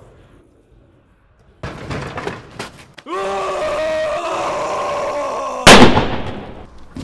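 A harsh, noisy rasp, then a man's long held scream, cut off by a loud sudden bang that dies away over about a second.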